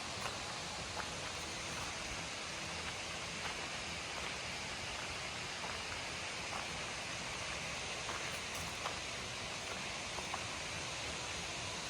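Steady rushing hiss of a large waterfall, even and unbroken, with a few faint small clicks scattered through it.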